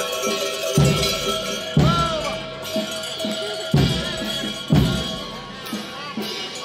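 Greek folk dance music for the Kladariatiko dance: a held melody over a large drum. The drum's heavy strokes come in pairs a second apart, repeating about every three seconds, with lighter strokes in between.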